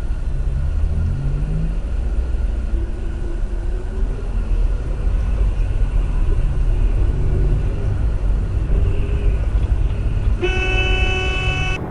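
Steady low rumble of a car's engine and tyres heard from inside the cabin in slow traffic, then near the end a car horn sounds one steady blast of about a second and a half.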